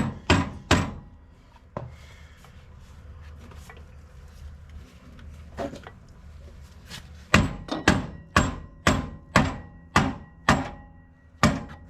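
Hammer blows on a rear suspension part being fitted: three quick strikes at the start, a couple of single strikes, then a steady run of about nine strikes, roughly two a second, in the second half.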